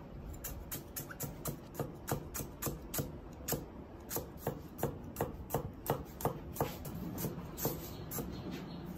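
A Chinese cleaver chopping and mincing coriander stems, garlic, shallots and ginger on an end-grain wooden chopping block: a steady run of knocks, about three a second, fading near the end.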